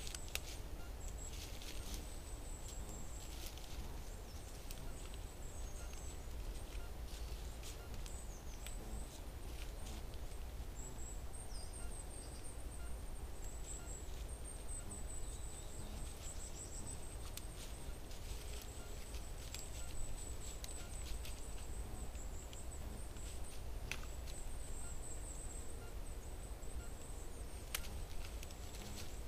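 Faint trail-camera forest ambience: a steady low rumble and a thin, wavering high whine, with scattered soft rustles and clicks as a roe deer steps through dry fallen leaves.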